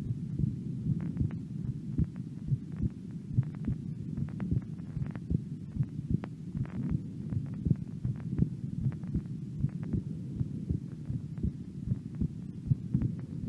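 An 18-year-old woman's heart beating at rest: a steady run of deep heartbeat sounds, with faint sharper clicks above them.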